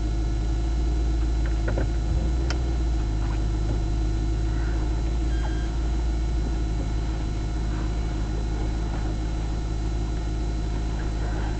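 Car engine and road noise heard from a dashboard camera inside the cabin: a steady low rumble.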